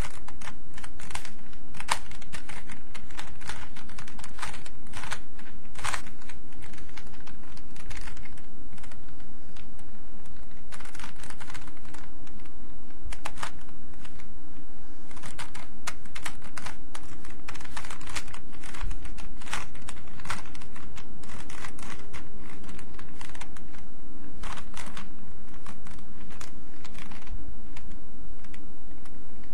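Rubik's Cube being turned with one hand: quick, irregular runs of plastic clicks as its layers are twisted, over a steady low hum.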